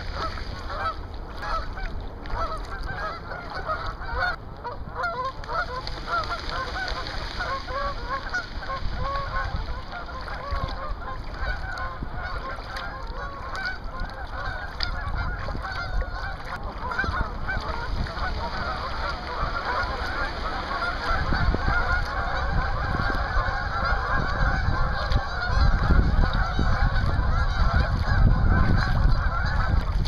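A large flock of geese honking continuously, many calls overlapping. The honking grows denser and louder in the last third, and a low rumble comes in underneath.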